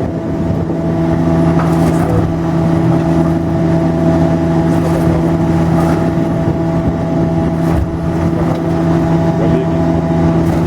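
Heavy machine's engine running steadily at an even pitch, with a few faint knocks.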